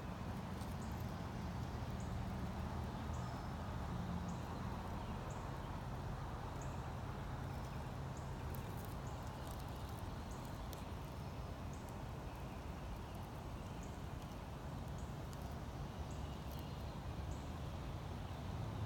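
Outdoor woodland ambience: a steady low rumble on the phone microphone, with faint short high-pitched chirps repeating every second or so.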